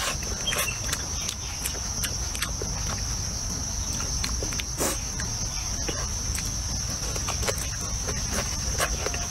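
Close-up mouth sounds of a person eating: wet chewing and smacking with scattered short clicks. Under them runs a steady, high-pitched insect buzz.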